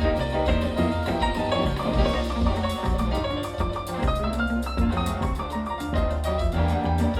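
Live jazz band playing an instrumental passage of a Latin mambo groove, with a strong bass line under a busy run of fast melodic notes and percussion; no singing.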